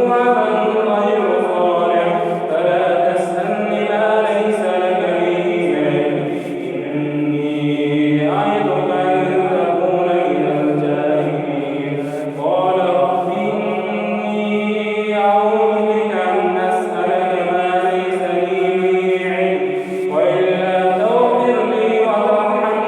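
A man reciting the Quran in a melodic chanted style, holding long, ornamented notes; the pitch jumps sharply upward three times to start new phrases.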